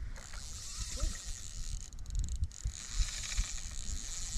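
Fly reel's click-and-pawl drag buzzing in rapid ticks as a hooked trout pulls line, with low rumbling wind on the microphone.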